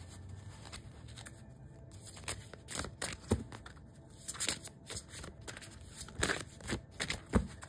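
A deck of oracle cards being shuffled and handled by hand, in short irregular bursts of card noise.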